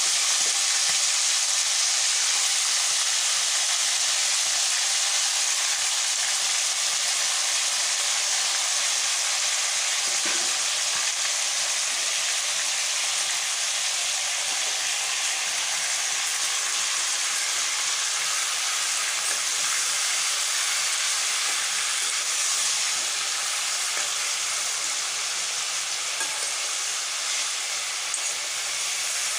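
Chicken pieces sizzling steadily as they fry in hot oil in a nonstick kadai, cooking in the oil alone with no water added; the sizzle eases slightly toward the end.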